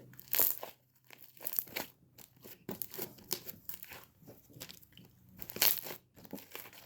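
Homemade clear slime being squished and stretched by hand, giving off irregular sticky crackles and pops.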